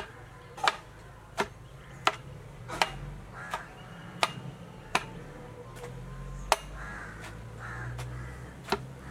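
A wooden pestle pounding boiled raw jackfruit in a granite stone mortar: a sharp knock at each stroke, about every three-quarters of a second.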